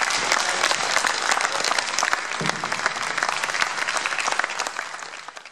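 A small crowd of spectators applauding with dense clapping after the winning rack, fading out near the end.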